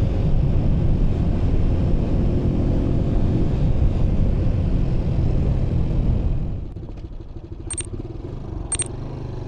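Wind buffeting the microphone while riding, over the rumble of the bike's engine and exhaust. About two-thirds of the way in the noise drops, then three short, high electronic beeps come about a second apart.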